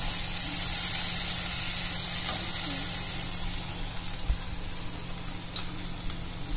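Oil sizzling in a hot pan as roughly sliced tomatoes go into fried onion and ginger-garlic paste; the sizzle is strongest in the first few seconds and slowly eases. A single soft knock about four seconds in.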